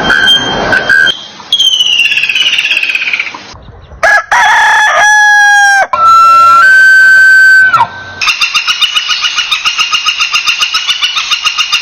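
A run of short, spliced animal sound clips, among them a rooster crowing. Loud pitched calls fill the middle, and a fast repeating trill runs through the last few seconds.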